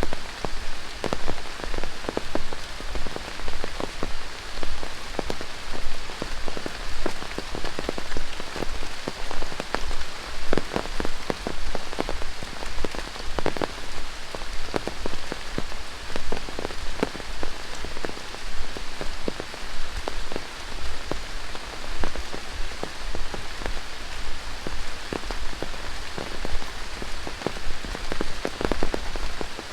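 Steady tropical rain: a continuous hiss with many close, sharp drop impacts standing out, several a second.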